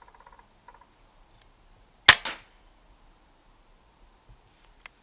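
An FX Dreamline Classic PCP air rifle fires one shot about two seconds in, a sharp crack. A second, quieter smack follows a fraction of a second later: the pellet striking the rat.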